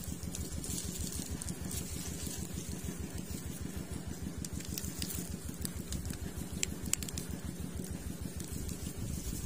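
A small engine or motor running steadily with a fast, even low throb, and a few light clicks near the end.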